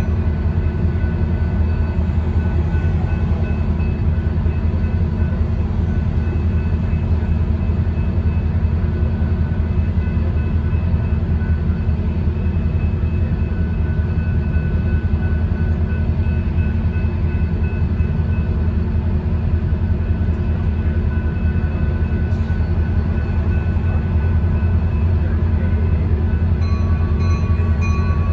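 Train running along the track with a steady low rumble, even throughout.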